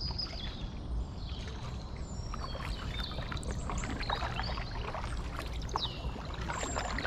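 Kayak paddle strokes splashing and dripping in the water over a steady low rumble, with birds chirping now and then.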